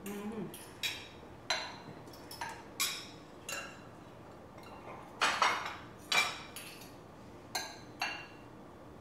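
Serving utensils clinking and tapping against ceramic plates and a bowl while food is arranged on a plate: about a dozen separate clinks, the loudest around five to six seconds in.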